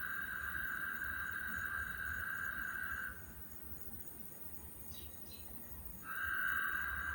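A steady, high-pitched trill, such as a calling insect makes, cuts off about three seconds in and starts up again about three seconds later.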